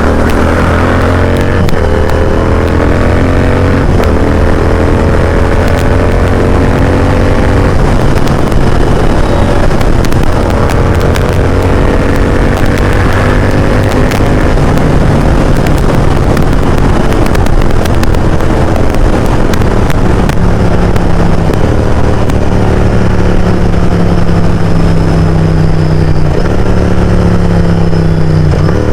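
Royal Enfield GT650's 648 cc parallel-twin engine through an aftermarket exhaust, loud, as the bike pulls through the gears. The engine note climbs and then drops back at each shift, several times over.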